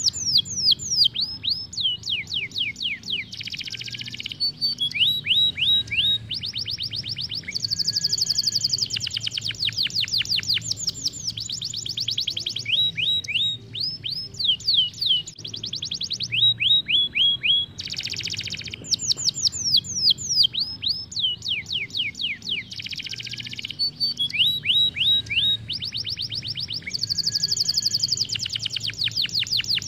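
Domestic canary singing a long rolling song: fast runs of repeated downward-sweeping notes, the speed of the trill changing from phrase to phrase, with brief pauses between phrases.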